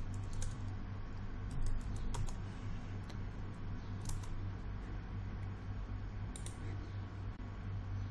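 A few scattered computer keyboard keystrokes and clicks over a steady low hum.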